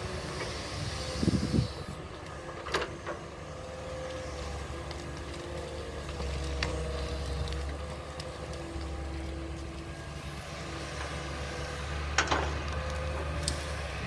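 Hitachi crawler excavator's diesel engine running steadily at work, with a few sharp metallic clanks: about a second in, near three seconds, and again near twelve seconds.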